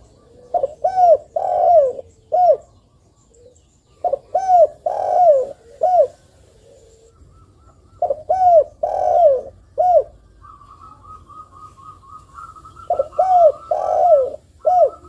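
Spotted dove cooing: four phrases, each of about four deep arched coo notes, repeated roughly every four seconds. A faint fast run of higher notes sits under the last phrase.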